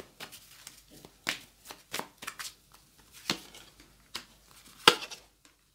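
Paper playing cards being handled: a Lenormand card drawn from a deck in hand and laid down onto a spread of tarot cards, a string of short, light card snaps and slaps, the loudest about five seconds in.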